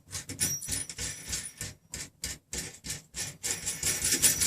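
Hands handling a 3D printer frame's metal and plastic parts as it is turned around and a bearing on the Y-axis rods is lined up: a quick, irregular series of clicks and knocks with some rubbing between them.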